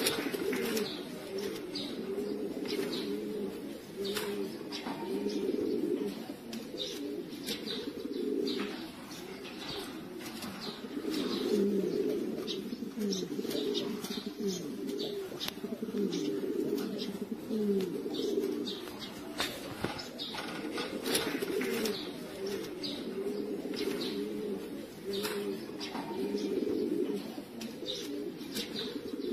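Domestic pigeons cooing, many overlapping coos that rise and fall without a break, with scattered short clicks among them.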